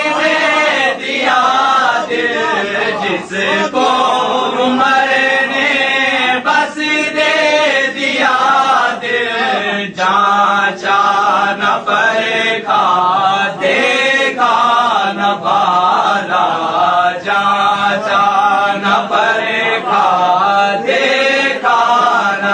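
Men's voices chanting in a continuous melodic recitation, phrase after phrase with short breaks between.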